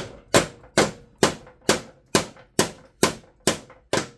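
Hammer striking steel, ten sharp metallic blows about two a second, driving a rusted spindle bolt out of a steel mower deck. The bolt was spread when its nut was split off, which makes it tight in the hole.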